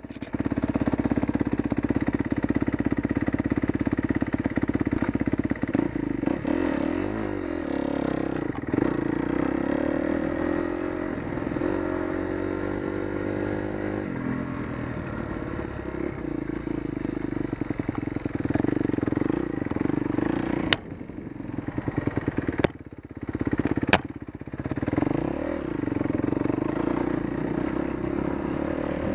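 Kawasaki KX250F's single-cylinder four-stroke engine running under way, its revs rising and falling as the throttle is worked. About two-thirds of the way through, the engine drops off and three sharp knocks are heard.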